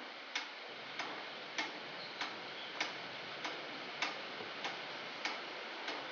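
A clock ticking steadily, about three ticks every two seconds, over a faint steady hiss.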